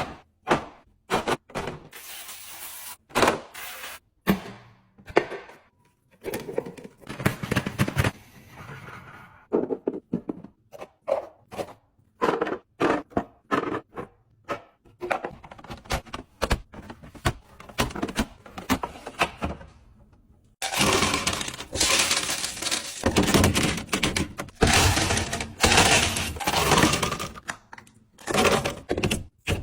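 Groceries and drink containers being handled and set down while a fridge is restocked: irregular clacks, knocks and thunks. A stretch of dense, continuous rustling comes in about two-thirds of the way through.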